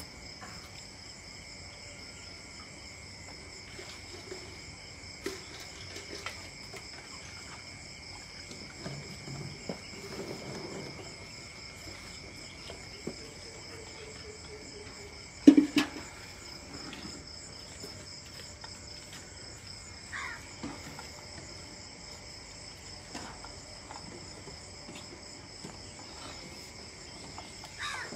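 Steady high-pitched chirring of crickets, with a few faint knocks and one sharp thump about halfway through.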